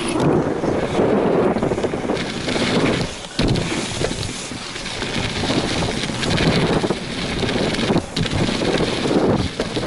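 Wind rushing over an action camera's microphone while riding fast down a BMX track, mixed with the rumble of the ride over the dirt. The noise drops away briefly about three seconds in and again near eight seconds.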